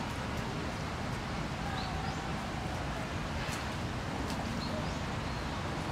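Outdoor zoo ambience: a steady low rumble of background noise with faint voices and a few short, high chirps from small birds.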